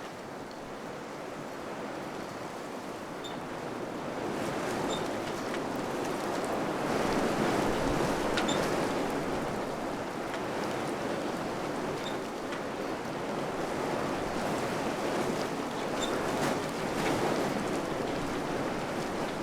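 Wind blowing in gusts, swelling to a stronger gust a few seconds in and then blowing steadily, with a few faint ticks.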